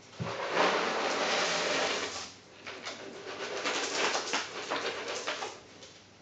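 Rustling and clattering of things being handled and moved about, in two stretches of about two and three seconds.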